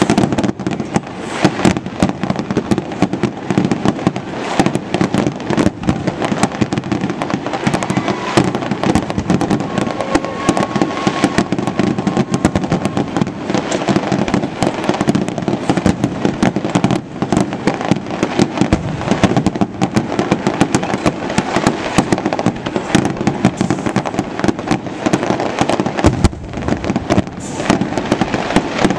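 Fireworks display going off: a continuous barrage of bangs and crackles in quick succession, over a constant low rumble of booms.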